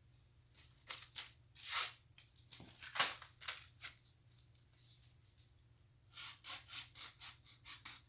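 Freshly stropped blade of a cheap multi-tool pocket knife making short, quick cutting strokes in a sharpness test: a few separate strokes, then a faster run of about three or four a second near the end.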